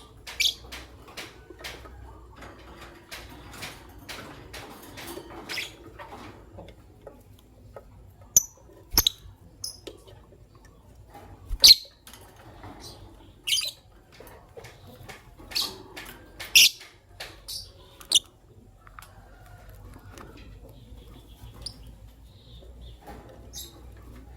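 Lovebirds giving short, sharp, high chirps at irregular intervals, thickest and loudest in the middle stretch, with a couple of sharp clicks among them.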